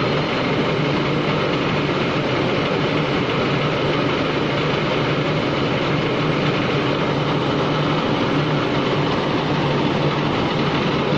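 PE250×1200 jaw crusher running with no rock in it, its flywheels turned by V-belts from an electric motor. It makes a steady mechanical running noise with a low hum and no crushing impacts.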